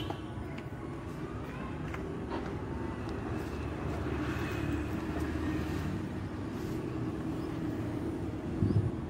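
Road traffic: a steady rumble of motor vehicle engines running nearby, with a faint held engine tone. A few low thumps near the end.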